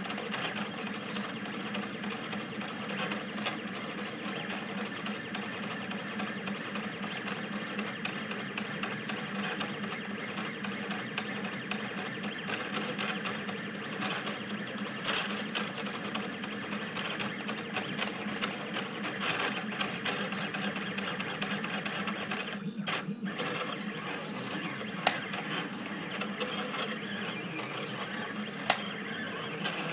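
Stepper motors of a Rostock delta 3D printer buzzing and whining in quickly changing tones as the effector lays infill at high print speed (about 200 mm/s). The sound dips briefly about three quarters of the way in, and two sharp clicks come near the end.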